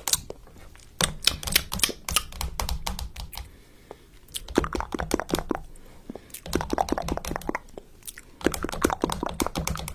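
Rapid, irregular clicks in bursts, with short pauses about four seconds and eight seconds in.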